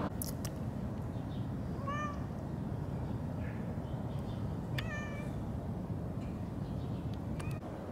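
Black-and-white longhaired feral cat giving two short meows, about three seconds apart; the second is a little longer and trails off. A steady low rumble runs underneath.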